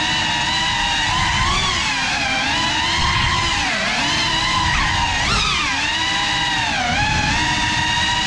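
GEPRC Cinelog 35 cinewhoop FPV drone's motors and ducted propellers whining, the pitch swooping up and down again and again with the throttle.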